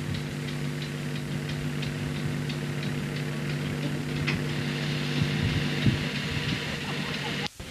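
Steady hum with several even tones from a standing Class 303 electric multiple unit, with a light ticking about three times a second. The sound cuts off abruptly near the end.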